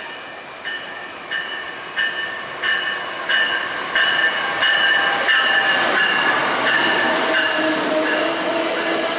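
Amtrak ACS-64 electric locomotive's bell ringing steadily, about one and a half strokes a second and growing louder as the train pulls in alongside the platform. The rush and rumble of the passenger cars rolling past builds beneath it.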